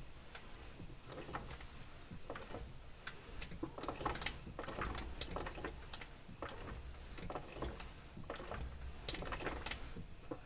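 Irregular light metallic clicks and knocks from a piston of the opened MeMZ-245 engine being rocked by hand in its bore, loose on its piston pin: the pin-to-piston-boss play behind the engine knock.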